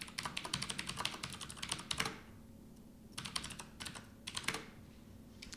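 Typing on a computer keyboard: a fast run of keystrokes for about two seconds, then a pause and two short bursts of a few keys each.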